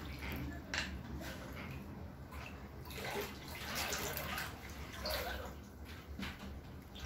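Muddy floodwater splashing and sloshing across a house floor as someone wades through it, in uneven surges.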